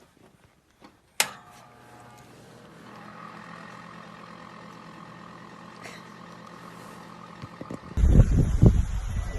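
A sharp click, then a steady mechanical hum. About eight seconds in, loud wind starts buffeting the microphone.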